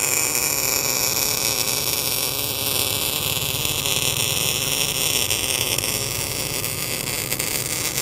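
Tenya Smart MIG 265 MIG welder's CO2-shielded arc running a long continuous bead: a steady, dense crackling hiss that does not break.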